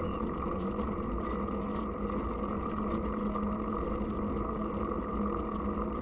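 Steady rumble of a bike-mounted camera rolling on asphalt: tyre and road vibration carried through the frame, mixed with wind on the microphone, at an even level throughout.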